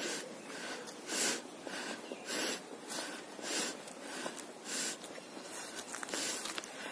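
Footsteps crunching on dry grass and leaf litter at a steady walking pace, about two steps a second.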